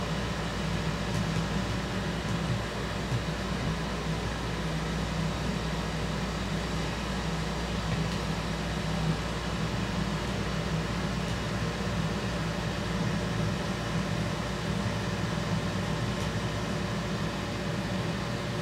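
Steady low mechanical hum of a running machine, even in level throughout.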